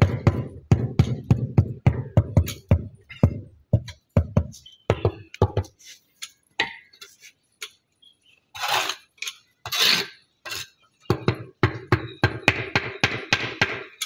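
Rapid knocking of a trowel handle on a flat natural stone, about four knocks a second, tapping the flagstone down into its mortar bed. The knocking stops for a couple of seconds, two short scrapes of the trowel follow, and then another fast run of knocks.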